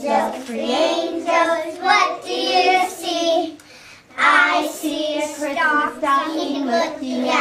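A small group of young children singing together, with a short pause about halfway through.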